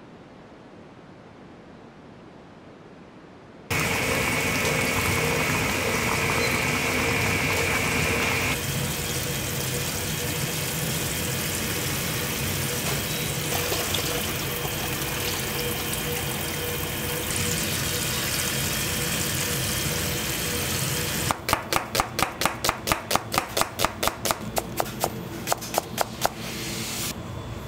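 Kitchen tap water running in a steady rush after a few quieter seconds. Near the end comes a fast run of sharp strikes, about four a second, for some five seconds.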